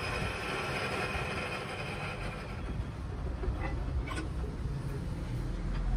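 Lathe turning a black stone mortar blank, the cutting tool scraping the spinning stone with a steady grinding noise and a faint whine that fades out about halfway through. A couple of light metallic clinks come a little past halfway.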